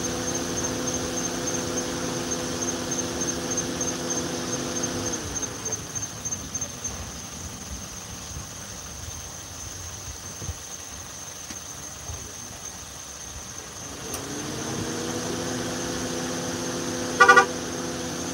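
A motor hums, rising in pitch as it starts, holds steady for about five seconds and dies away, then starts up again near the end. A short, loud toot-like blast comes shortly before the end. High, steady insect chirping runs through the first few seconds.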